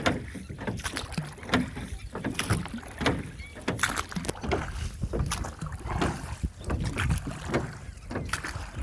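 Small boat being rowed on water: irregular paddle splashes and knocks over a low rumble.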